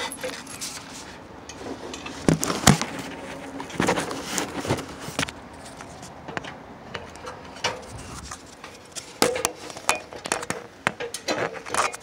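Irregular knocks, scuffs and metallic clinks of a person moving on an aluminium ladder at a roof edge.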